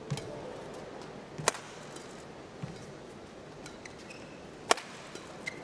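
Badminton rally: rackets striking the shuttlecock with sharp cracks, the two loudest about a second and a half in and near the end, with lighter hits and short shoe squeaks on the court mat between them.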